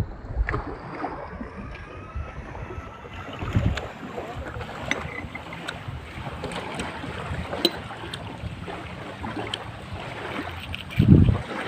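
Wind gusting on the microphone over the wash of the sea, with scattered small clicks and taps.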